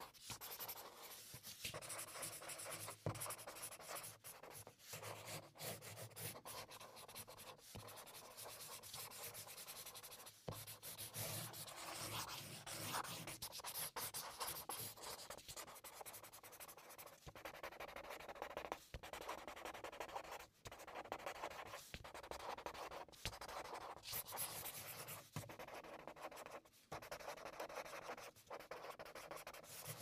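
Marker drawing on paper: the tip scratching across the sheet in a continuous run of strokes, broken by many short pauses where it lifts off.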